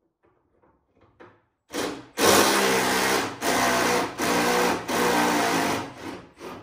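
Handheld power tool running in four short bursts, backing out the hood hinge bolts on a Ford truck.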